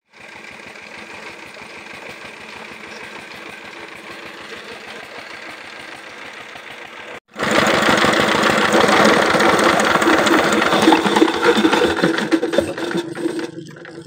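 An engine running with a steady, even knocking beat, 'dag dag dag dag'. For the first seven seconds it sounds farther off and quieter, then after a sudden break it is much louder and closer.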